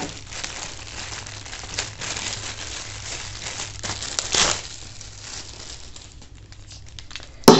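Packaging crinkling and rustling as it is unwrapped by hand, louder about four seconds in, then quieter handling and a sharp click near the end.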